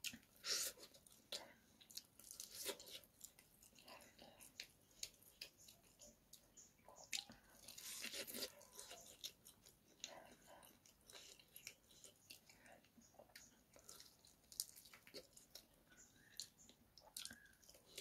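Close-miked eating sounds: a man biting meat off a chicken drumstick and chewing it with rice and curry, short scattered crackles and mouth clicks.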